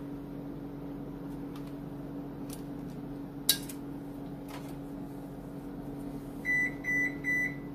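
A steady kitchen-appliance hum with a sharp click about halfway through, then three short electronic beeps near the end.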